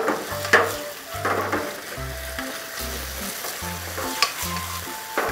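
Spicy webfoot octopus and vegetables sizzling in a frying pan over high heat, stirred and tossed with a wooden spatula, with several sharp knocks and scrapes of spatula and pan along the way; this is the final quick high-heat stir-fry of the dish.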